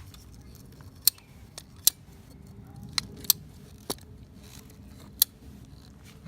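Hand-held ratcheting PVC pipe cutter being squeezed on a plastic water pipe: six sharp clicks at uneven intervals as the cutter ratchets and bites through the pipe.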